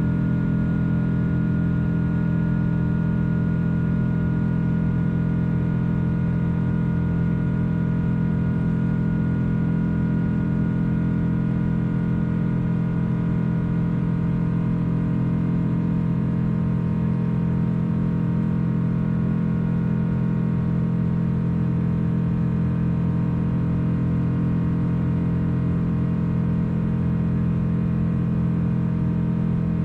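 Steady, loud drone of a Boeing 777-200's jet engines and airflow as heard inside the passenger cabin, with deep humming tones and a fainter high whine that stay unchanged throughout.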